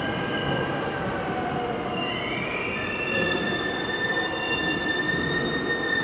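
Seoul Subway Line 5 train pulling into a station, its running rumble joined by high steel wheel squeal. Several squealing tones glide in about two seconds in and then hold steady as the train slows.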